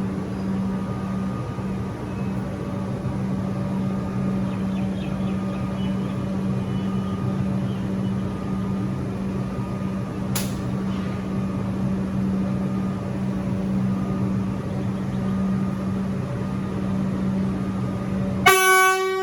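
Alstom Comeng electric suburban train with a steady running hum and a low drone, one sharp click about halfway. Near the end a short, loud single-note blast on its horn.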